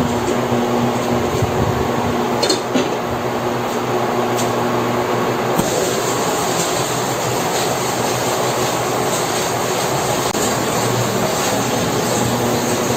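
Pot of fish and patola broth at a rolling boil: a steady bubbling hiss with a low hum under it. The sound brightens about halfway through, when the glass lid is on.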